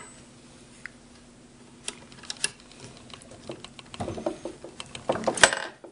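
Small metallic clicks and rattles of a freshly picked Master Lock 575 padlock and lock picks being handled. The clicks are scattered at first, get busier about four seconds in, and end with one sharp click near the end.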